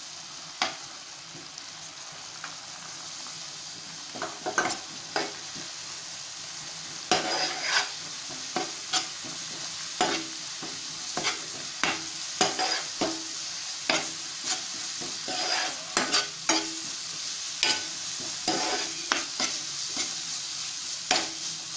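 Roasted semolina being stirred into a sizzling onion mixture in a nonstick pan: a steady sizzle with repeated quick scrapes and taps of the spatula against the pan, which come much more often from about seven seconds in.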